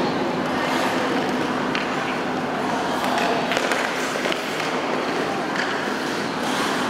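Ice hockey play in a rink: skate blades scraping on the ice, with several sharp clicks of sticks on the puck, over a steady hall noise.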